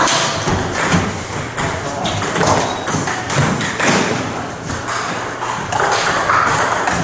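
Between table tennis points: a few scattered thuds and taps from the ball and the players' shoes on the wooden floor, over continuous room noise.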